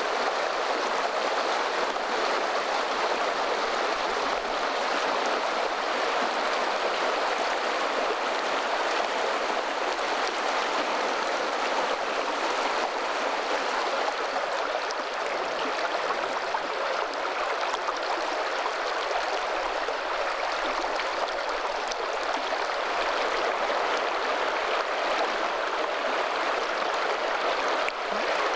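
Steady rush of a stream's running water, even and unbroken throughout.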